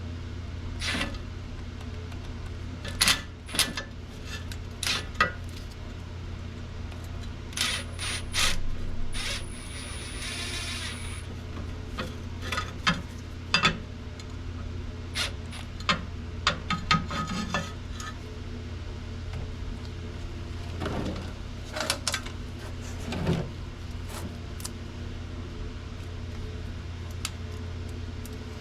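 Metal tools and parts clinking and knocking, a dozen or so separate sharp strikes with a short scraping rattle about ten seconds in, over a steady low hum.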